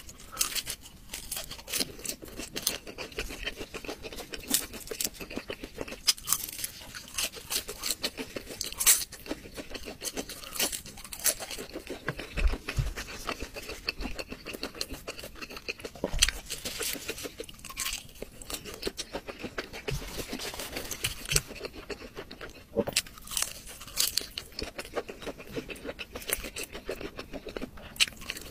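Close-miked eating of crispy, sauce-coated fried food on skewers: crunchy bites and chewing, with many sharp crunches coming one after another.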